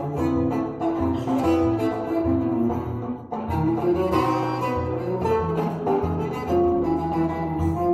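Live choro played by a trio: a bowed cello melody over acoustic guitar and a drum kit.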